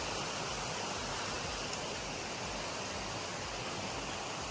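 Steady rushing of flowing water, an even noise with no breaks.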